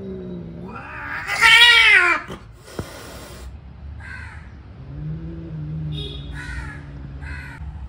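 Two cats growling and yowling at each other in a territorial standoff. A low drawn-out growl opens, then a loud wavering yowl comes about a second in, then a short hiss. Low growling returns near the end, with a few higher wails over it.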